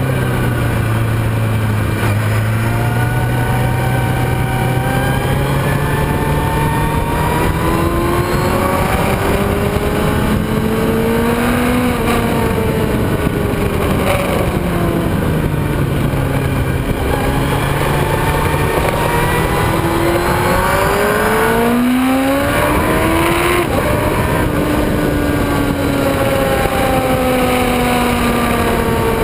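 Onboard sound of a racing motorcycle's engine at full track pace, the revs climbing and cutting back again and again through gear changes and corners, with heavy wind rush over the microphone.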